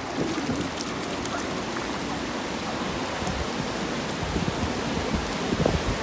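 Steady ocean surf, with light splashing of a dog's paws and bare feet through shallow seawater.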